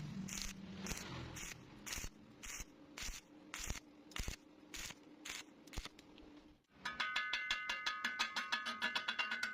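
Steady rhythmic scraping strokes on metal, about two a second, each one short and harsh. About two-thirds of the way in the sound cuts off, and music with a fast ticking beat takes over.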